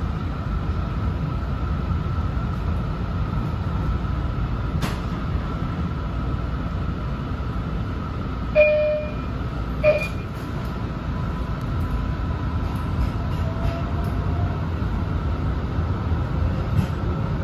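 Steady rumble and hum inside an MBTA Green Line light-rail car stopped at a station and then moving off. About halfway through there are two short electronic chimes, the door chimes before the car departs.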